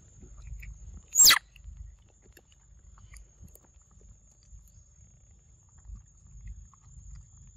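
Monkeys chewing and smacking on soft papaya, with faint wet clicks. About a second in comes one loud, very short shrill call that starts high and drops sharply in pitch.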